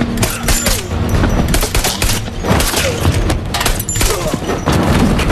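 Film gunfight sound: rapid gunfire from automatic rifles, many shots in quick succession.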